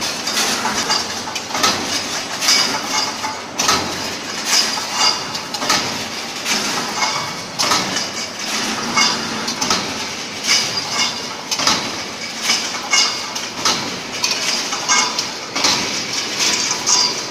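Brick force mesh welding machine running, with a metallic clank about once a second over a steady mechanical din.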